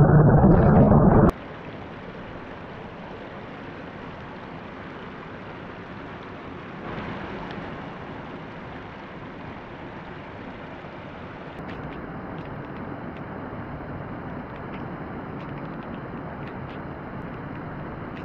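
Muffled rush of churning water heard from underwater, which cuts off abruptly about a second in. After that, a steady rush of water spilling over a low concrete weir, with faint light clicks in the second half.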